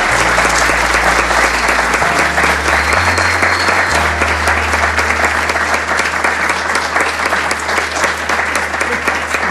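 Audience applauding steadily, a dense patter of many hands clapping. Low sustained notes of background music sit underneath and shift in pitch a few times.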